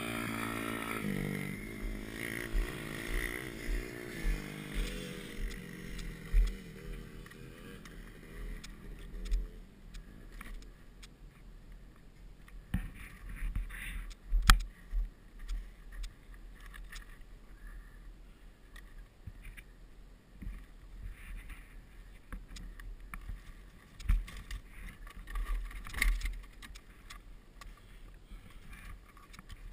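Wind buffeting a helmet-mounted camera microphone, with scattered knocks and scuffs from moving about and handling a dirt bike, the sharpest knock about fourteen seconds in. Over the first several seconds a dirt bike engine's drone wavers and fades out.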